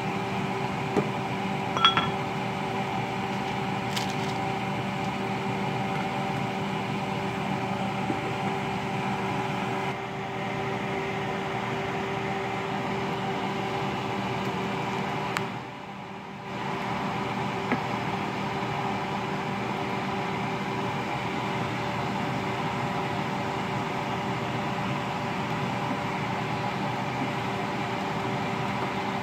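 Steady hum of a kitchen appliance's fan motor, with a couple of light clicks about two seconds in.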